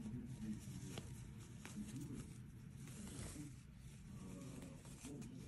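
Faint rustling and rubbing of cotton waffle-weave fabric as a sewn blanket corner is turned right side out and pressed into shape by hand, with a couple of soft ticks about a second in and a louder rustle about three seconds in.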